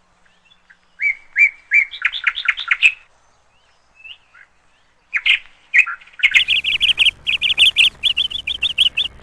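Bird chirping in quick repeated notes, in short runs with pauses, then a fast continuous series of chirps from about six seconds in. A low steady hum comes in under the chirps at the same point.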